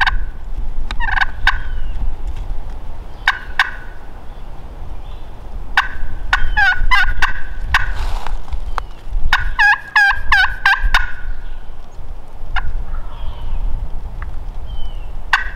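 Wild turkey tom gobbling again and again, several rattling gobbles in a row, with wind rumbling on the microphone.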